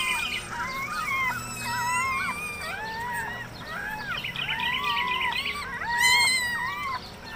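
Several newborn puppies squeaking and crying at once: short, high squeals that rise and fall and overlap, with one louder, higher cry about six seconds in.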